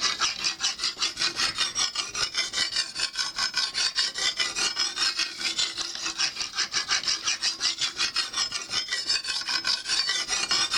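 Lansky guided-rod sharpener's fine hone rasping back and forth along a clamped knife blade's edge in quick, even strokes, about five a second. The knife is being honed on the stone before the ultra fine.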